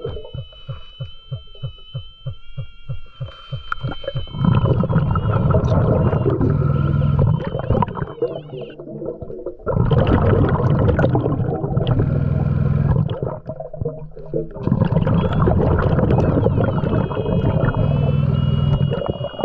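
Scuba diver breathing through a regulator underwater: three long bursts of exhaled bubbles rumbling past, with quieter in-breaths between them. The first in-breath carries a faint steady whistle.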